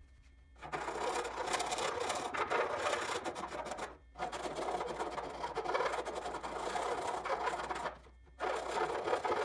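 A small file rasping in two holes in a composite model-aircraft fuselage to enlarge them: continuous rough scraping in three spells, broken briefly about four and eight seconds in.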